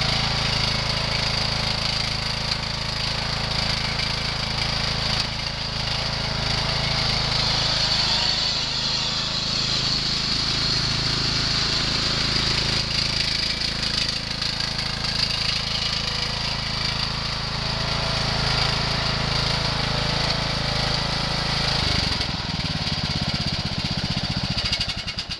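Troy-Bilt riding lawn mower engine running steadily as the mower drives across the grass, with a steady high-pitched whine. About three seconds from the end the engine note changes, and then it stops abruptly.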